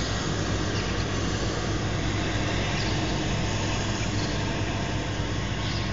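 Steady outdoor background noise with a low hum and a few faint bird chirps.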